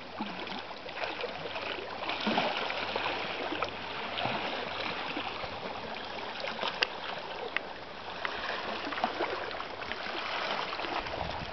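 Small waves lapping and sloshing against shoreline rocks: a steady watery wash with scattered small clicks and splashes.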